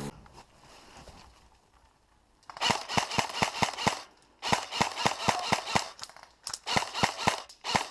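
Airsoft gun firing three strings of rapid shots, about six sharp cracks a second, starting a couple of seconds in with short pauses between strings.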